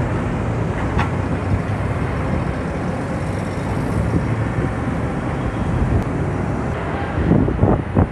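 Steady rumble of street traffic and vehicle engines, with a few louder surges of rumble near the end.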